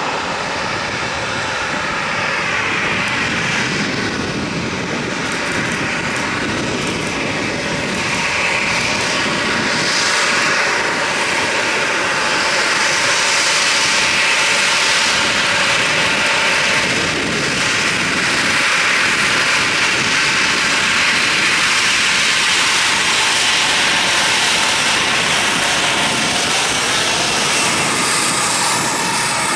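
Boeing 737 BBJ's twin CFM56 turbofans at takeoff power, loud and steady jet noise, a little louder in the middle, with engine whine sliding in pitch as the jet moves past.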